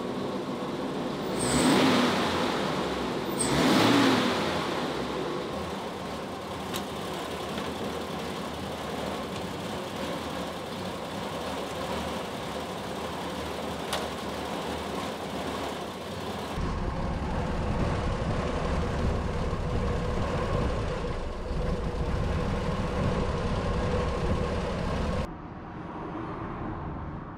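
Dodge WC52 3/4-ton truck's flathead straight-six engine running, revved twice a few seconds in, then idling steadily. About two-thirds of the way through, the sound turns deeper.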